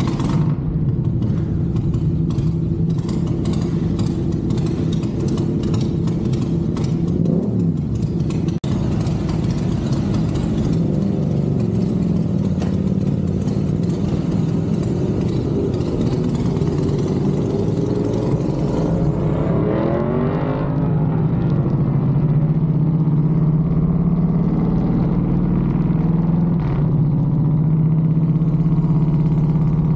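Motorcycle engine idling, then pulling away with a rise and fall in pitch about two-thirds through and running on at a steady note. A steady high hiss with scattered clicks sits over the idle and stops just before the pull-away.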